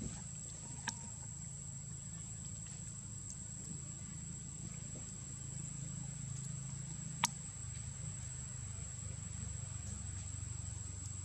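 Outdoor ambience: a steady high-pitched insect drone over a low rumble, with a sharp click about a second in and a louder one about seven seconds in.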